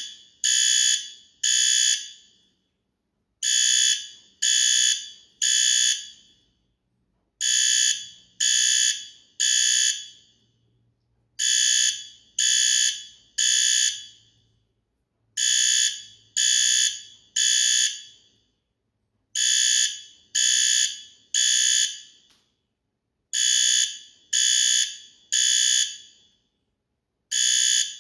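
Fire alarm sounding the three-beep evacuation pattern (temporal-three): three loud, high-pitched beeps about half a second each, then a pause, repeating about every four seconds.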